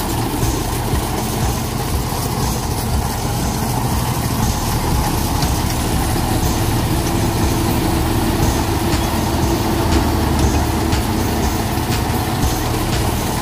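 Kubota rice combine harvester's diesel engine running steadily, with the clatter of the machine working.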